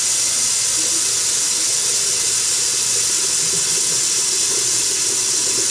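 Bathroom tap running steadily, a constant hiss of water.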